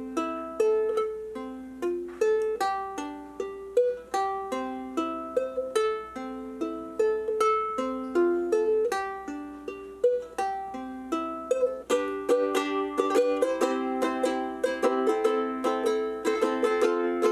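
Ukulele fingerpicked in a steady repeating arpeggio of single plucked notes. About twelve seconds in the picking gets busier and fuller.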